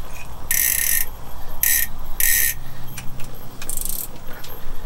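Ice-fishing reel's drag buzzing in four short bursts as a hooked fish pulls line off against it.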